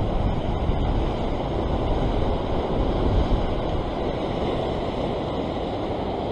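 Ocean surf breaking and washing over a rock ledge: a steady rush of white water, with wind buffeting the microphone.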